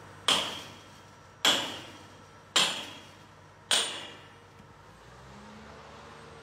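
A sledgehammer striking steel on a crane's lattice boom: four ringing metallic clangs about a second apart, each dying away, then quieter.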